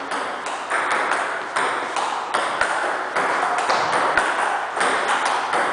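Table tennis rally: the ball clicking off bats and bouncing on the table, about two to three hits a second, echoing in a large hall.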